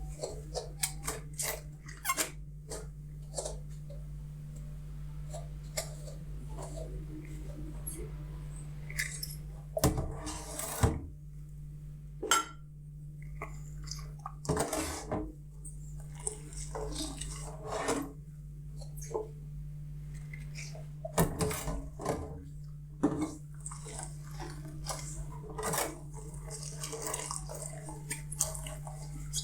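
Dishes and cutlery clinking and knocking against each other while being washed by hand at a sink, with a few longer rushing sounds of water between the knocks. A steady low hum runs underneath.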